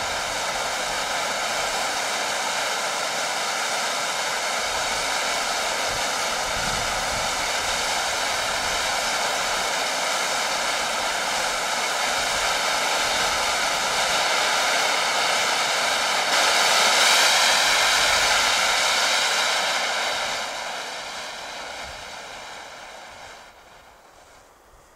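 Expired pyrotechnic red distress hand flare burning with a steady hiss, a little louder about two-thirds of the way through. Near the end the hiss fades away as the flare burns out.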